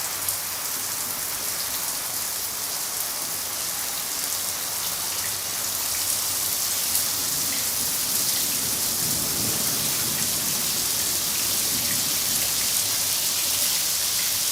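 Steady rain falling, a dense even hiss with scattered drop ticks; a faint low rumble swells briefly about nine seconds in.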